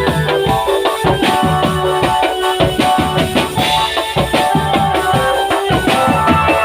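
Band music led by drums: low drum strokes and snare hits beat a steady rhythm under held melodic notes.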